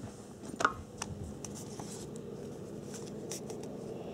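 Bowser HO-scale 4-8-2 model steam locomotive running, its electric motor and gearing giving a steady low hum. A few sharp clicks come about half a second in.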